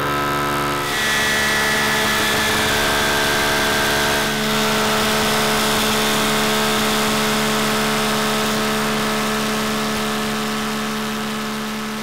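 Table saw with a molding head cutter starting up suddenly, then running steadily with a dense whirring noise as the spinning cutter head is slowly raised up through a wooden zero-clearance insert, cutting its own slots in it.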